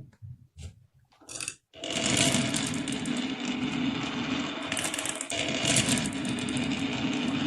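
Marbles rolling and clattering down a marble run track: a few separate clicks at first, then about two seconds in a dense, continuous rattle of rapid clicks.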